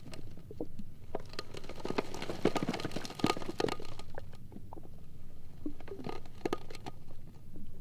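Sea ice floes rubbing and grinding against each other: a run of close crackles, creaks and short squeaks that thickens and peaks in the middle, then thins to scattered cracks over a faint low rumble.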